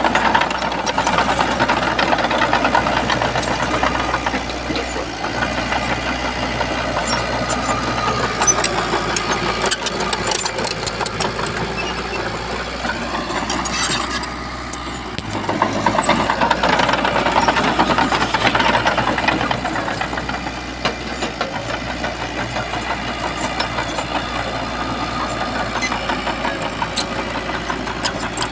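Heavy diesel earthmoving machinery running, its engine noise swelling louder twice as it works under load.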